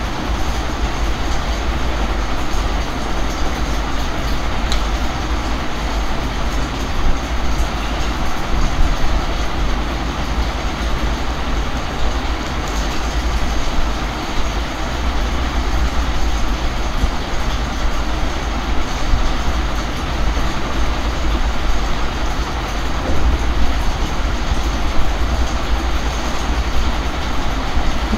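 Steady rumbling background noise with a strong low hum underneath, unbroken throughout.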